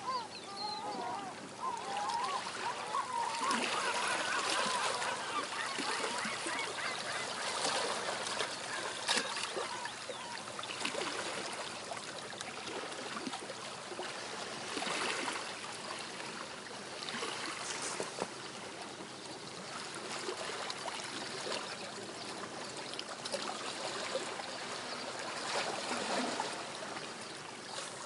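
Distant seagulls calling over a steady wash of gentle water at the seashore. The wavering calls cluster in the first few seconds.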